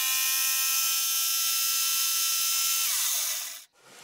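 Electric jigsaw running steadily as it cuts through the last short strip of an oak circle. About three seconds in it is switched off, and its whine falls in pitch as the motor winds down, then stops.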